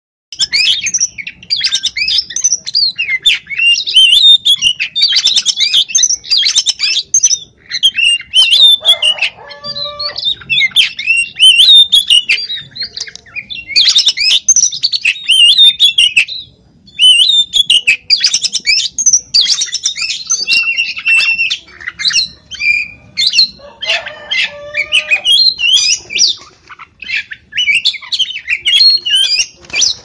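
Oriental magpie-robin in full song: a rapid, varied, nearly unbroken run of high whistles and chattering notes, with a short break a little past halfway.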